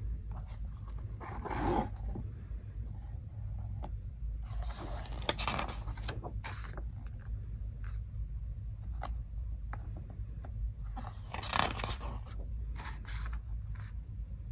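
Pages of a hardcover picture book being handled and turned: paper scraping and rustling in three main bursts, about a second and a half in, around five seconds and around eleven seconds, with small clicks between, over a steady low hum.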